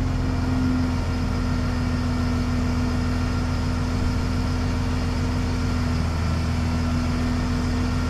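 A diesel engine running steadily, driving the boom lifting the radiator, with a steady low drone and a constant hum above it.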